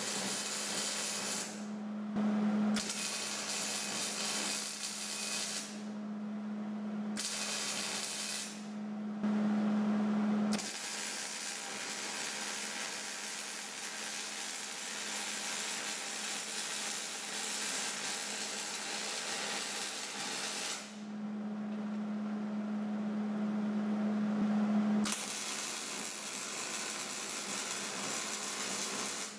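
Electric arc welding on a steel truck frame rail: the arc hisses and crackles in a run of separate beads, about five, the longest lasting about ten seconds midway. In the short pauses between beads a steady low hum is left.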